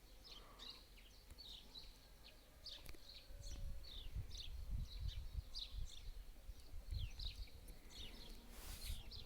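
Small songbirds chirping, a quick run of short, high, downward-sliding notes repeated throughout. From about three seconds in there is an irregular low rumble on the microphone, and near the end a brief rustle.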